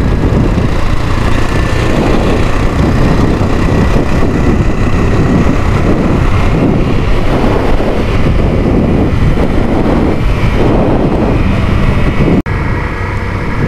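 Dual-sport motorcycle riding at road speed: steady wind rush over the camera microphone with the engine running underneath. The sound cuts out for an instant about twelve seconds in and is a little quieter after.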